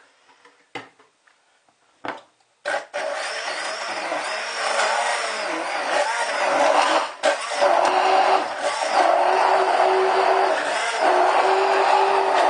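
A few knocks, then a hand-held stick blender switches on a little under three seconds in and runs steadily, its motor whine wavering up and down as it churns a milkshake mixture of milk, ice cream and ice in a plastic jug.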